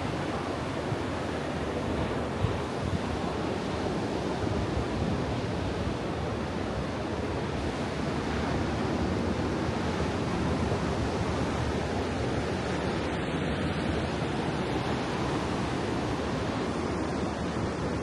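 Pacific Ocean surf washing onto the beach below, a steady rushing of waves, with wind blowing over the microphone.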